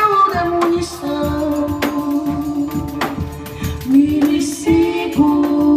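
Live acoustic ensemble music: long held melodic notes over regular hand-percussion strikes from a pandeiro and zabumba.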